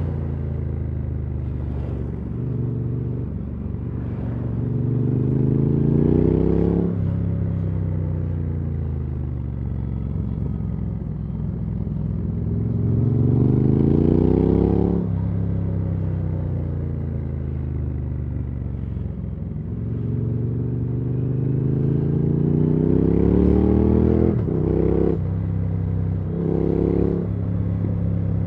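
Triumph Speed Twin 900's 900 cc parallel-twin engine and exhaust, heard from the saddle. It climbs in pitch three times under acceleration, each time breaking off sharply and sinking steadily as it winds down. Near the end there are two short revs.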